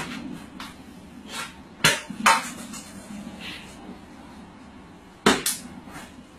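Plastic water bottle knocking on a hard shelf and floor: a pair of sharp knocks about two seconds in as it goes off the shelf, then another cluster of knocks a little after five seconds as it is set down again.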